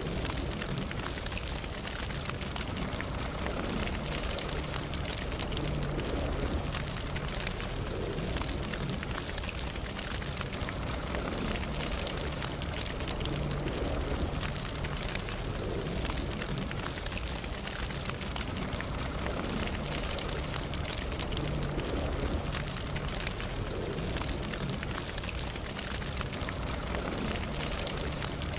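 Campfire burning: a steady hiss of many small crackles and pops over a low rumble.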